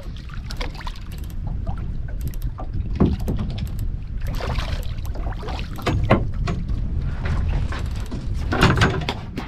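Steady low wind rumble on a small fishing boat, broken by a string of irregular knocks and rattles, the loudest about a third of the way in, at the middle and near the end.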